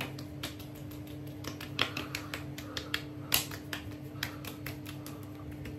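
Hands patting and pressing skincare product into the cheeks: a quick, irregular run of light slaps and taps, about three or four a second, over a steady low hum.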